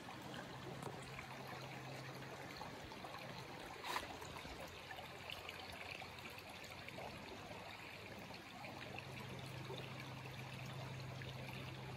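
Faint trickle of a shallow creek running over rocks, with one brief click about four seconds in.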